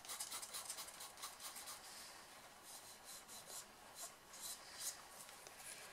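Pencil strokes scratching faintly over pastel-covered paper while shading. The strokes come quickly at first, then more spaced out.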